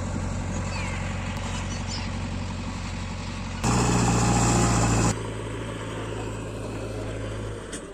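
JCB 3DX backhoe loader's diesel engine running steadily, rising to a louder, higher note for about a second and a half in the middle before settling back. The engine note drops away near the end.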